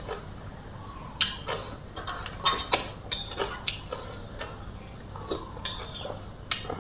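Metal spoon and fork clinking and scraping against a plate in short, irregular knocks, a few with a brief ring.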